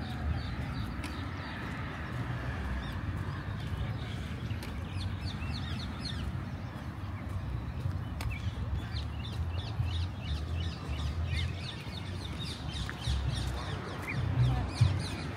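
A flock of small birds chirping and chattering, the calls growing dense from about four seconds in, over a steady low rumble of street and wind noise.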